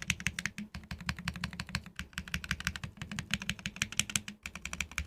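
Steady fast typing on a custom mechanical keyboard with lubed Viola Tricolor tactile switches in a top-mounted aluminium plate, under PBT keycaps: a quick run of keypress clicks and bottom-outs with a brief pause near the end.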